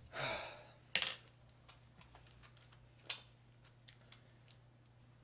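Handling noise from hoverboard parts and tools during disassembly: a short scrape, then two sharp clicks about two seconds apart with a few faint ticks between, over a low steady hum.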